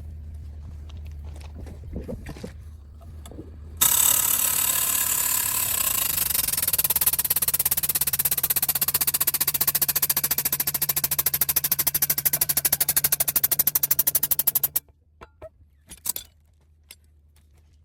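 Air impact wrench hammering in one long, loud, rapid run. It starts suddenly about four seconds in and cuts off after about eleven seconds, followed by a few sharp knocks over a steady low hum.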